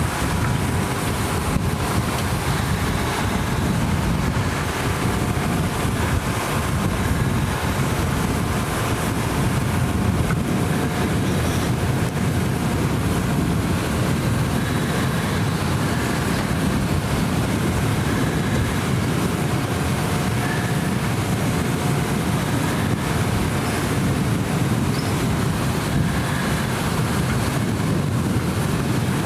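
A steady, unchanging engine drone with faint wind noise on the microphone.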